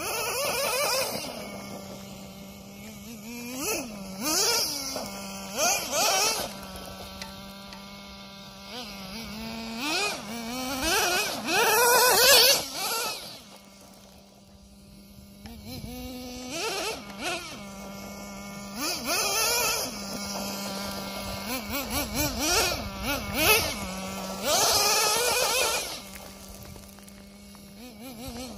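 Traxxas Jato 3.3 nitro RC car's two-stroke nitro engine revving hard in repeated bursts, its high buzzing pitch rising and falling. Between runs it drops back to a steady idle.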